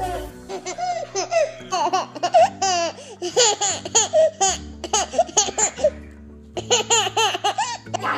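A baby laughing in repeated bursts of high-pitched giggles, over background music with low held notes; the laughter breaks off briefly about six seconds in.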